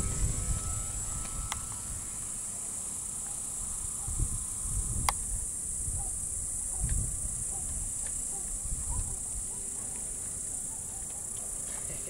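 Steady high-pitched chirring of field insects, with gusts of wind buffeting the microphone in low rumbles. The thin whine of the radio-controlled model plane's motor fades out about a second and a half in, and there is one sharp click about five seconds in.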